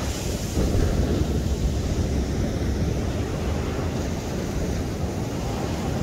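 Sea waves breaking and washing on the shore, with wind buffeting the microphone as a low rumble. The wash swells a little louder just under a second in.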